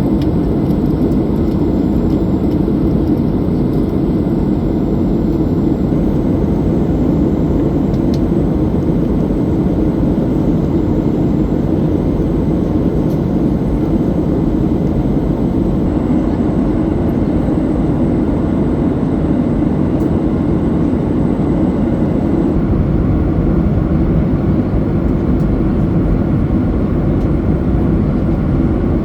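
Steady cabin noise of a Boeing 737-800 in flight: an even, deep rush of jet engines and airflow heard from inside the cabin.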